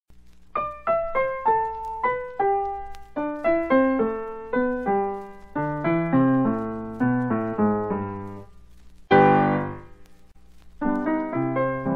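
Solo piano music: a melody of single struck notes, a loud chord about nine seconds in, a short pause as it dies away, then the tune starts again near the end.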